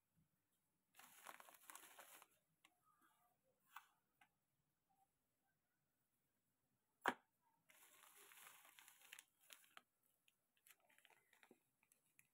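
Plastic packaging crinkling in two short bursts, about a second in and again around eight seconds, with a single sharp tap just after seven seconds that is the loudest sound; otherwise near silence.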